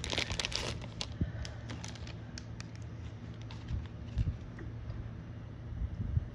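Thin plastic wrap crinkling in the first second as it comes off a stack of trading cards in rigid plastic toploaders, then the hard plastic toploaders clicking and tapping against each other as they are flicked through.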